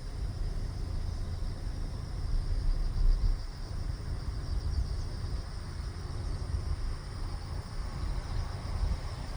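Outdoor ambience: an uneven low rumble of wind on the microphone, gusting about three seconds in, over a steady high-pitched trill.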